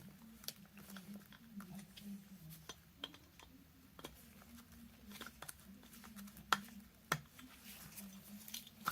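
Scattered small metallic clicks and taps of a screwdriver and pliers working the brass flint wheel button of a miner's safety lamp down into position, over a faint steady low hum.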